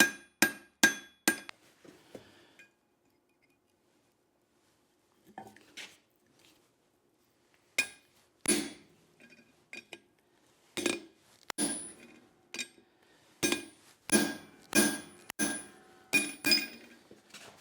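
Hand hammer striking hot leaf-spring steel on an anvil, each blow ringing: forging down the reins of a pair of tongs. A quick run of four blows, a pause of about three seconds, then scattered blows that build into a steady run of more than one a second.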